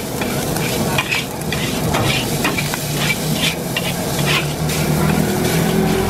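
Metal spatula scraping and clanking against a wok while fried rice is stir-fried, about two strokes a second, over a steady sizzle. A low steady hum runs underneath.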